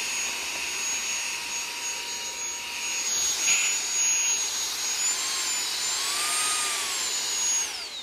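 Eufy HomeVac H20 cordless handheld vacuum running with its crevice attachment, a steady high motor whine over rushing suction. The pitch lifts and wavers a little in the second half, then winds down as it is switched off near the end.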